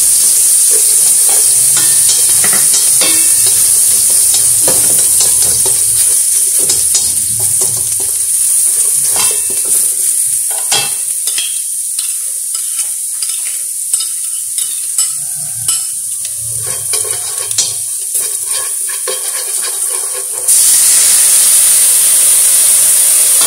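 Minced garlic sizzling in oil in a wok, with wooden chopsticks clicking and scraping against the pan as it is stirred; the sizzle softens a little over time. About twenty seconds in it jumps suddenly to a loud, steady hissing sizzle as the sauce is poured into the hot oil.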